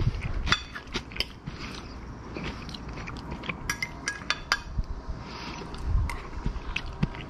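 Close-up chewing of crunchy raw snap peas, an irregular run of wet crunches, with a few light clinks of a metal fork on a ceramic plate.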